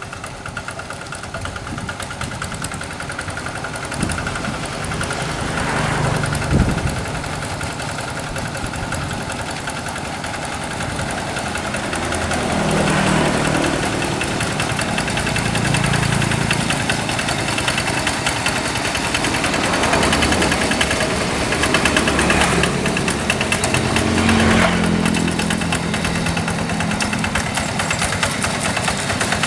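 Kubota RD85DI single-cylinder diesel of a Quick G1000 two-wheel hand tractor running with a steady beat. Its sound swells and eases as revs or load change, growing louder from about midway. There is a sharp knock about six seconds in.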